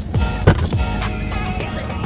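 Background music with a steady beat and deep bass kicks that slide down in pitch.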